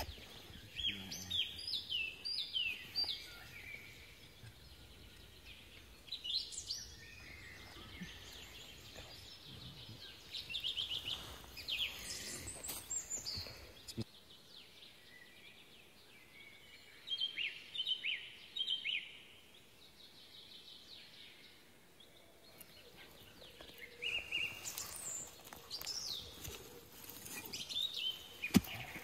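Songbirds singing: short phrases of quick, high chirping notes, repeated every few seconds over faint background noise.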